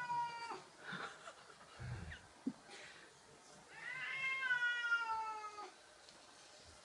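Domestic cat meowing: the end of one meow right at the start, then a long, drawn-out meow about four seconds in that falls in pitch as it ends. A soft thud comes between the two.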